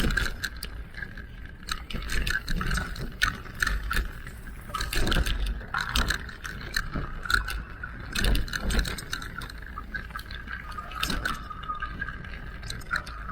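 Electric mountain bike ridden over a rough trail: a steady high whine runs under frequent irregular rattles and knocks from the bike jolting over bumps, with a low rumble of wind or tyre noise.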